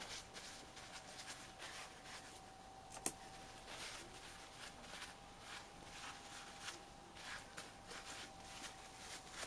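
Faint rustling and handling noises, with one sharp click about three seconds in, over a faint steady hum.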